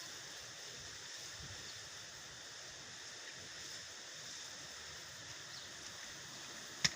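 Steady hiss of background noise, with a single sharp click or tap near the end.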